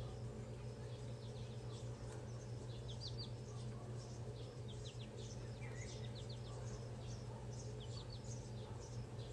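Birds chirping repeatedly in short high notes, some coming as quick falling strokes in twos and threes, over a steady low hum.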